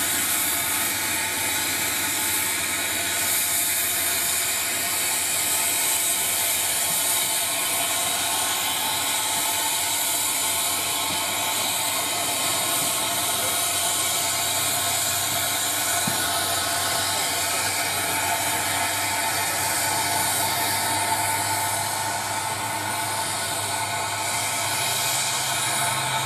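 Steam locomotive hissing steadily, with a whirring mechanical note and no change in level.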